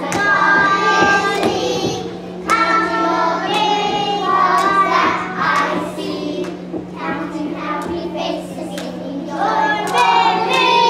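A group of young children singing a song together, with a steady low hum underneath.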